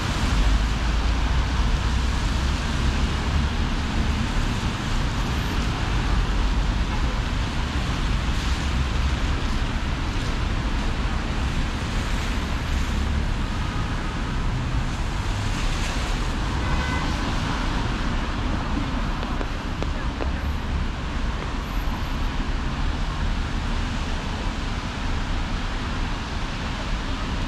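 City road traffic: a steady rush of passing vehicles.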